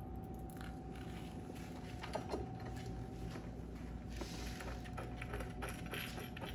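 Small clicks and rattles of bolts and nuts being fitted by hand to a metal bracket on a plastic brake-light housing, with a couple of sharper clicks about two seconds in, over a steady faint hum.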